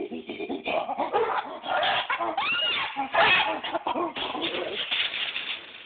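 Chimpanzee vocalizing during a display: a dense run of loud calls and cries that rise and fall in pitch, tailing off near the end.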